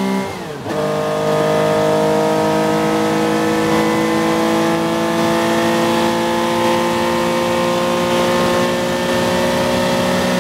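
Air-cooled 2.5-litre flat-six of a 1969 Porsche 911T race car, heard from inside the cockpit at full throttle. A quick upshift comes in the first second: the revs drop and the sound briefly dips. The engine then pulls hard, its pitch rising slowly and steadily through the gear.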